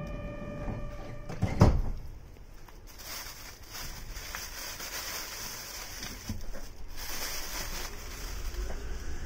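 Yurikamome rubber-tyred automated guideway train running along its elevated track, heard from inside the car as a steady running hiss. There is a single loud thump about a second and a half in. Steady electronic tones sound briefly at the start and stop after about a second.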